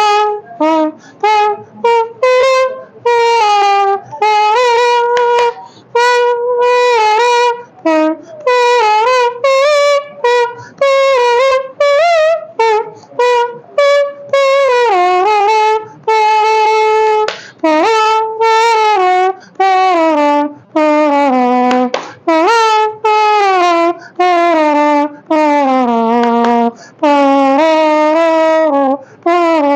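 A national anthem performed as a solo trumpet-like melody made with the mouth: held notes, some with a waver, separated by short breaths.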